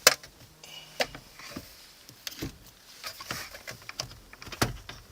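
Scattered clicks and knocks of hard plastic as a car's stock CD head unit is handled and pulled out of the dashboard, with the loudest knock near the start and one just before the end.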